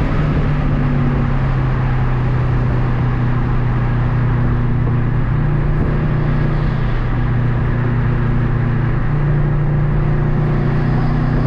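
Car driving at highway speed, heard from inside the cabin: a steady low engine drone over road and tyre noise.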